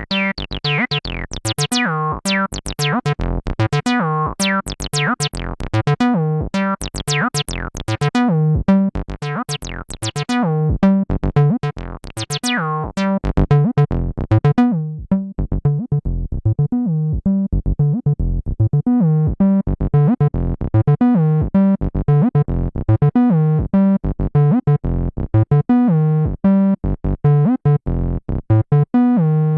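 Behringer TD-3, a monophonic analog 303-style bass synth, playing a sequenced acid bassline of short, rhythmic notes. For the first half the resonant filter is wide open and the notes are bright and squelchy. About halfway through the filter closes down and the line turns darker and duller.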